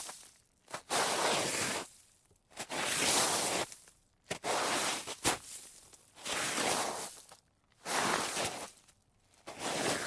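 A series of slides across snow: about six gritty, hissing scrapes, each lasting about a second, with short pauses between them.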